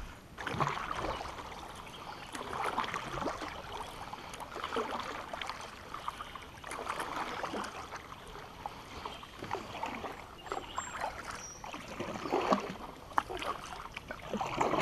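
Kayak paddle strokes dipping into and swishing through slow river water, a stroke about every one to two seconds, with a few light knocks.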